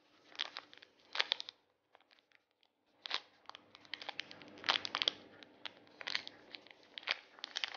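Thin clear plastic bag crinkling as fingers squeeze a small squishy toy through it: irregular crackles, with a lull of about a second and a half about two seconds in.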